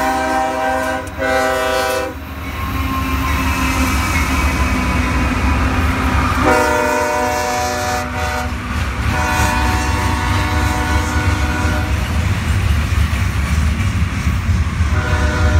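Horn of a CSX freight's lead GE diesel locomotive, an ES40DC, sounding a multi-note chord in several blasts, the longest about three seconds. Beneath it, the steady low rumble of the locomotives' diesel engines and the clack of wheels over the rail joints as the locomotives and freight cars pass close by.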